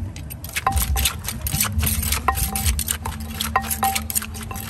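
Wooden pestle knocking in a clay mortar and a spoon clinking against its rim as green papaya salad is pounded and tossed: rapid, irregular knocks and clatter with short ringing clinks, starting just after the beginning.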